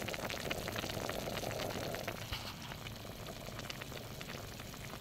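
Shabu-shabu broth bubbling at a boil in a stainless steel pot on a portable butane gas stove: a steady patter of small pops. It grows a little softer after about two seconds.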